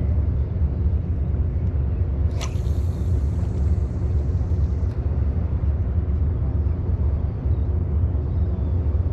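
A spinning rod cast: about two and a half seconds in, a sharp swish, then a high hiss of line running off the reel that stops about two and a half seconds later. Under it, a steady low rumble throughout.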